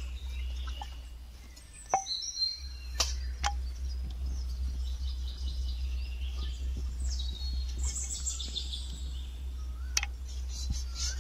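Birds chirping over a steady low hum, with a few sharp clicks of a wooden rolling pin against a marble slab as samosa dough is rolled out, about two and three seconds in and again near the end.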